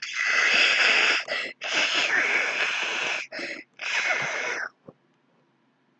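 A person making loud, breathy, hissing vocal noises in a string of bursts of varying length, stopping just before five seconds in. A single click follows.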